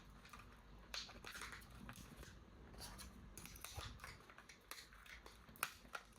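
Faint rustling and scattered small clicks of toy packaging and plastic parts being handled, with one sharper click about five and a half seconds in.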